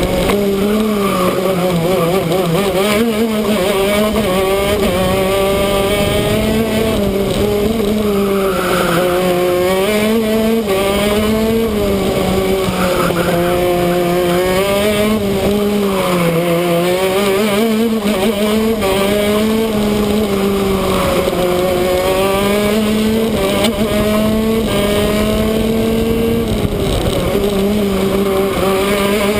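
Shifter kart's two-stroke engine at racing speed, its revs climbing and dropping again and again as it accelerates out of and brakes into corners.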